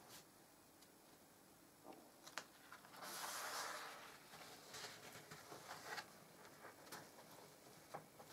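A stiff black card page of a photo album being turned over, one papery swish lasting about a second, about three seconds in. Faint taps and rustles of hands handling the album before and after.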